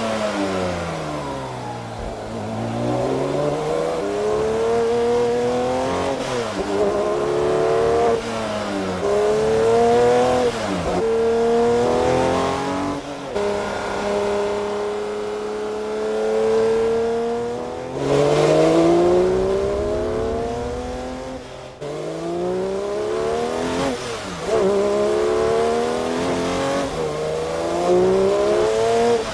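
Porsche 911 S/T's 4.0-litre naturally aspirated flat-six and exhaust under hard acceleration, revving up through the gears of its manual gearbox: the pitch climbs and drops sharply at each shift, with the revs falling off near the start and a steadier stretch around the middle.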